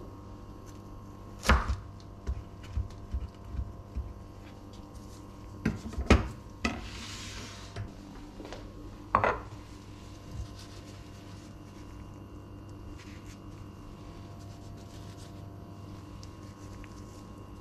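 A chef's knife cutting through a rolled omelette and knocking on a wooden cutting board, with a few sharp knocks and clicks in the first seconds. A short scrape follows, then a ceramic plate is set down on the counter with a knock about nine seconds in. After that only a low steady hum remains.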